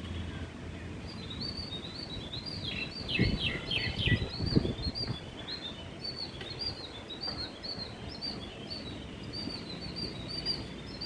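Small birds chirping, with many short high-pitched notes repeated rapidly and a quick run of falling notes about three seconds in. A few low rumbles come in around the middle.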